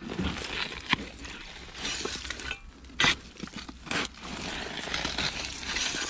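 Hand digging in hard-packed dirt full of broken glass and stoneware: uneven scraping and raking with sharp clinks of shards, two of them loud, about a second in and about three seconds in.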